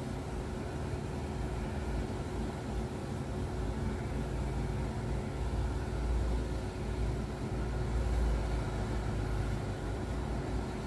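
Steady low mechanical rumble with a constant hum running underneath, swelling a little around the middle and again later.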